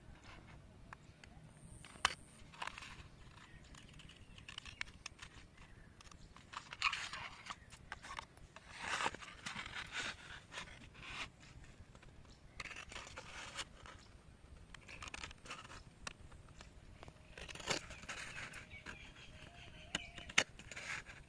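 Steel scissors cutting through a paper cup, heard as on-and-off crunchy snips of the paper with a few sharp clicks of the blades.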